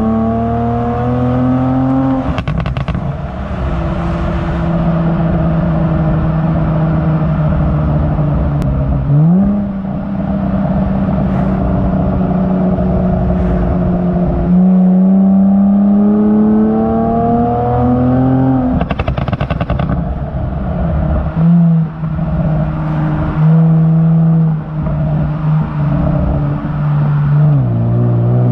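Kia Stinger GT's twin-turbo V6 exhaust under acceleration, pitch climbing and then dropping at each gear change. Short crackles from the pop-and-bang tune come at a couple of the throttle lifts, about two seconds in and again near two-thirds of the way through.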